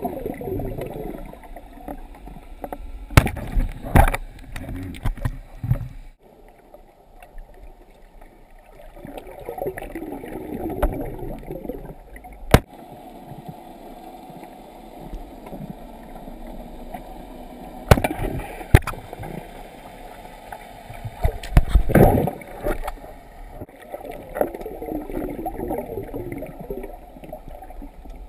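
Muffled underwater water noise around a diver's camera: a low rushing that swells and fades, with about half a dozen sharp clicks and knocks.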